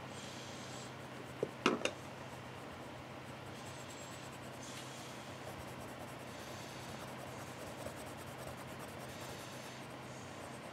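Coloured pencil scratching faintly on graph paper as lines are drawn, in short strokes that come and go. A couple of light knocks sound about a second and a half in.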